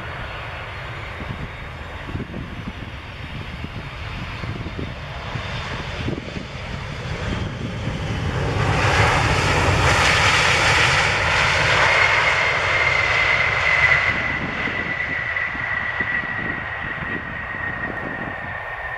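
Boeing 737 jet airliner landing and rolling out on the runway: its engine noise builds to its loudest about halfway through as it passes close by, then eases off while a steady high whine falls slightly in pitch as it rolls away.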